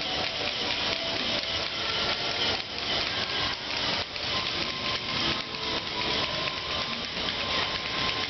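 Lego NXT robot motors and plastic gears running with a continuous grinding, rubbing noise, and a faint steady whine joining in from about four seconds in.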